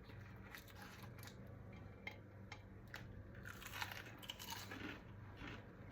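Faint, irregular crunching and chewing of crispy deep-fried pakoras being eaten, with a few louder crunches a little past the middle.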